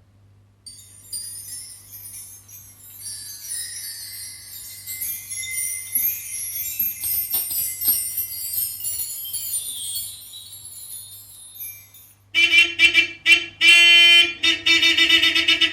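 Jingle bells shaken in a light, high tinkling for about eleven seconds, then from about twelve seconds in a louder, pitched bell-like ringing in quick repeated runs.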